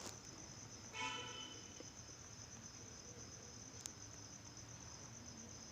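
Crickets chirping steadily in the background as a fast, even trill. A short, faint pitched sound comes about a second in.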